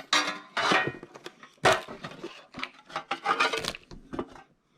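Plastic toy pieces clicking, clattering and rubbing as they are handled, in short irregular bursts.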